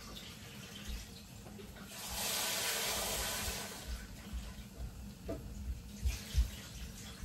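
Kitchen tap running for about two seconds into a pot of rice being washed, followed by a few light knocks and clinks.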